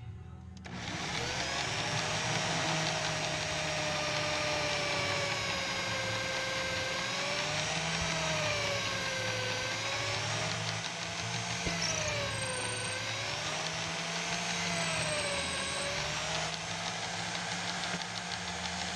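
Corded electric drill, clamped in a drill stand, running and boring into a wooden file-handle blank. It starts about a second in, and its whine wavers up and down in pitch as the bit loads up in the wood.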